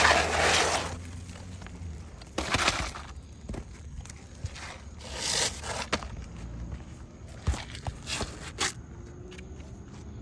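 Gritty scraping on asphalt roof shingles, three times, followed by a handful of sharp clicks and taps, as shingles are worked loose during a shingle repair.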